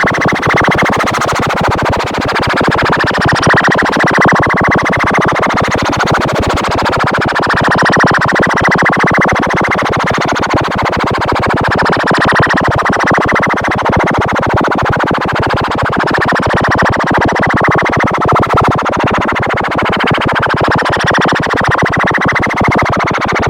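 Synthesized emergency-alert-style alarm tone: one loud, continuous, harsh buzzing tone that runs on without a break.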